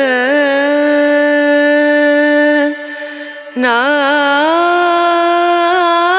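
Indian devotional singing: a solo voice holding long notes, each phrase opening with quick ornamental wavers. The singing pauses briefly about three seconds in, then a new, slightly higher phrase begins.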